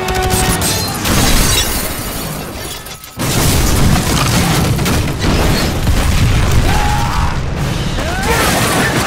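Action-film sound effects: crashing and shattering debris, then a sudden heavy boom about three seconds in, followed by continuing rumble and falling debris, with music underneath.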